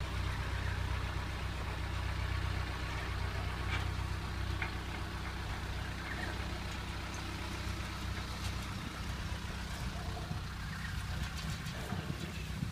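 A vehicle engine idling steadily, a low even hum that weakens over the last few seconds.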